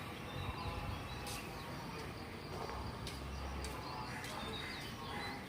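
Outdoor ambience with faint bird chirps scattered through it and a few short clicks.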